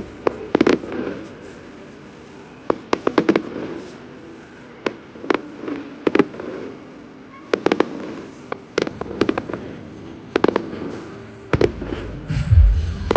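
Public fireworks display: clusters of sharp bangs from shells bursting, each trailing an echo, coming in quick runs with short gaps between. A low rumble joins near the end.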